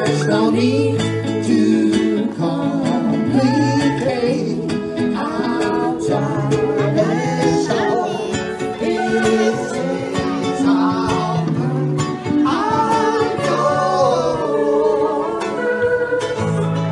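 Live acoustic string band playing: plucked and strummed strings keep a steady rhythm over a low bass line, while a melody line slides and bends in pitch above.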